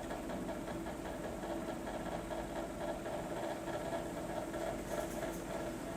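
A small machine running with a steady hum, holding two constant tones.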